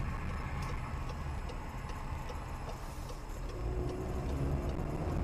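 Car driving, heard from inside the cabin: a steady low rumble of engine and road noise with faint, regular ticking of the turn-signal indicator as the car turns.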